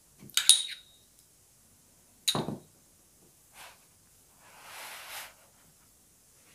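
A metal spoon clinks sharply against a ceramic sauce ramekin, with a brief ringing tone, about half a second in, followed by a duller knock on the wooden cutting board about two seconds in. Near the end there is a soft scraping as a burger bun is slid across the wooden board.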